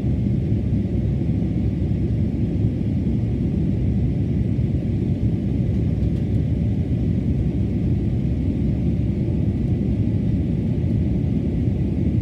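Steady low rumble of an airliner's jet engines and rushing air, heard inside the passenger cabin during the climb after takeoff.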